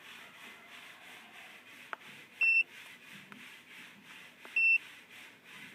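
Handheld OBD-II scan tool giving two short, high electronic beeps about two seconds apart, with a faint click just before the first.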